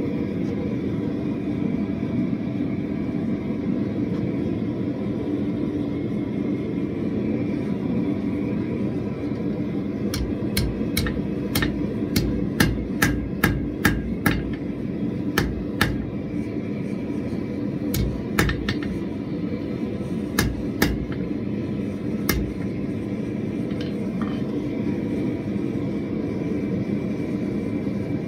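Blacksmith's hammer striking hot iron on an anvil, forging a lump into a leaf shape: about twenty sharp blows in irregular runs, starting about ten seconds in and stopping a few seconds before the end. Under them, a gas forge runs with a steady rush.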